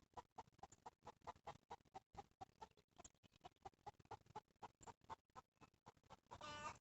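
Preá (wild cavy) giving a faint, quick series of short squeaks, about five a second, with a louder, longer call near the end.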